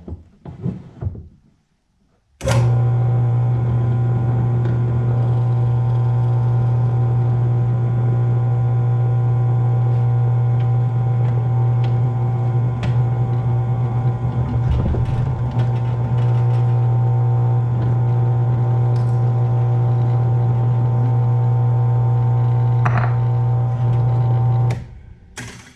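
Ryobi 10-inch benchtop drill press switched on with a click, its electric motor running with a loud, steady hum for about twenty seconds, then switched off and winding down.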